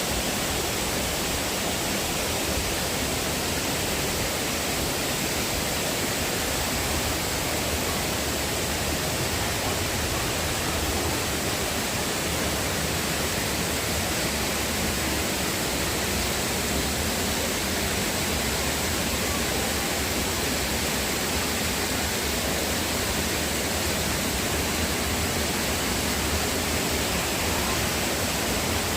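Waterfall rushing: a steady, unbroken rush of falling water.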